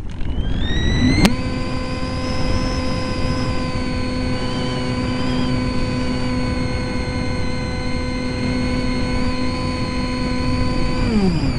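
EasyStar RC plane's 2835/16 brushless motor and propeller, heard from on board: the whine rises as the throttle opens in the first second, holds a steady pitch, then winds down near the end as the motor is throttled back. A constant rush of airflow noise runs underneath.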